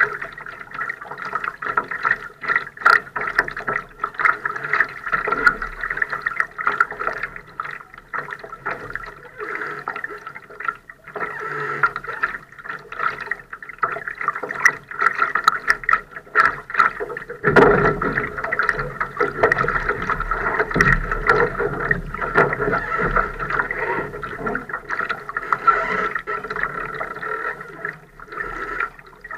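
Water lapping and gurgling against the hull of a Laser sailing dinghy sailing in light air, with many small ticks and splashes. A deeper rumble joins about two-thirds of the way through.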